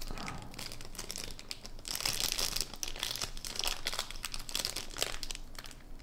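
Thin clear plastic bag crinkling as hands work it open to pull out a sticker: irregular small crackles, busiest between about two and four seconds in.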